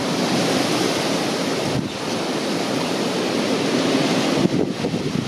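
Storm-force wind buffeting the microphone: a loud, continuous rushing and rumbling, dipping briefly twice.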